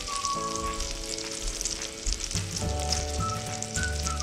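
Butter sizzling and crackling steadily in a stainless-steel pot, with a spoonful of pepper and tomato paste frying in it. Soft background music with held notes plays underneath.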